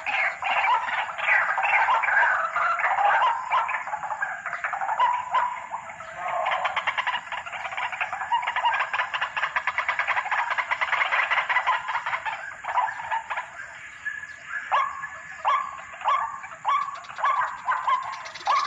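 White-breasted waterhen (ruak-ruak) calling over and over in a long chorus of repeated notes. A dense run of overlapping calls gives way, about a third of the way in, to a fast rattling stretch, then to a slower series of separate, falling notes near the end.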